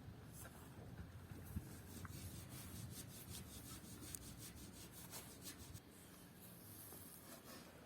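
Faint, repeated rasping strokes of a hand saw cutting through wood.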